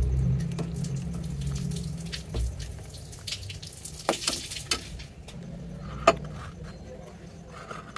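Coconut-milk agar-agar mixture sloshing and pouring as a glass bowl is dipped into and tilted over the pan, with scattered clinks and splashes. A single sharp knock comes about six seconds in.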